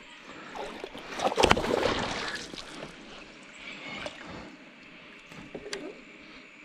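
A hooked Murray cod thrashing and splashing at the water's surface beside a kayak. The loudest flurry comes about a second in and lasts roughly a second, followed by smaller splashes and knocks.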